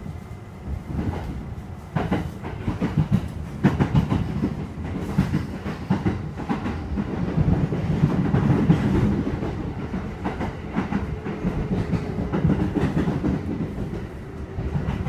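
Kintetsu 2610 series electric train running, heard from inside the car: a steady low rumble with the wheels clacking irregularly over rail joints. This is the unusual running noise of unit X25, a mix of high and low tones.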